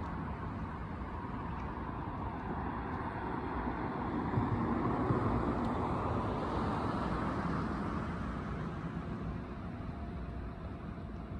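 A road vehicle passing by, its tyre and engine noise swelling about halfway through and then fading, over a steady traffic hum.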